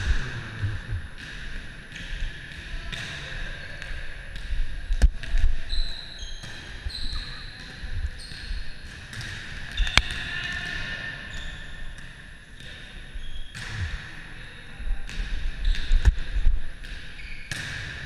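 Indoor volleyball play: sharp slaps of hands hitting the ball, the loudest about five and ten seconds in, among short sneaker squeaks and footsteps on the gym floor.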